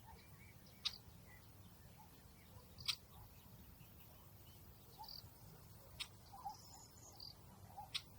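Faint outdoor nature ambience: scattered short, high chirps of small birds or insects, with four sharp clicks spread through it.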